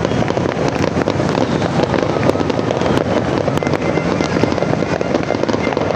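New Year fireworks going off in quick succession: a dense, continuous crackling and popping of many small bursts at once.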